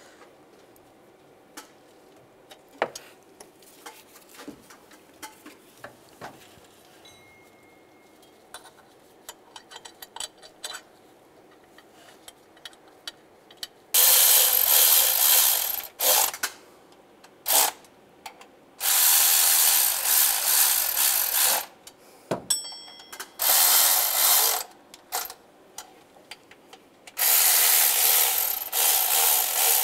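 Light clicks and taps, then from about halfway a cordless electric ratchet running in five bursts of one to three seconds each, spinning the water pump bolts into the engine.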